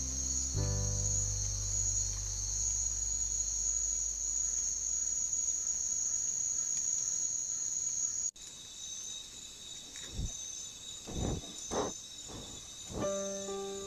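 Night insect chorus, a steady high-pitched trill, which cuts off about eight seconds in and gives way to a different insect call in short repeating pulses. A few low thumps sound near the end.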